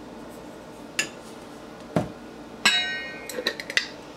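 Kitchenware clinks and knocks as salt is spooned into a saucepan: a light click, a duller knock, then a sharper clink that rings briefly, followed by a few small ticks.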